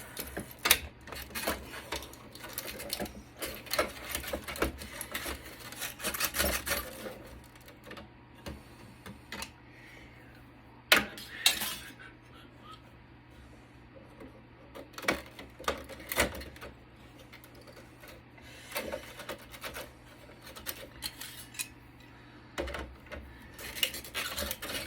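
Irregular metal clinks, scrapes and knocks of hand tools on the sheet-metal chassis and parts of a Cisco Catalyst network switch being taken apart for scrap, with a sharp knock about eleven seconds in. A low steady hum runs underneath.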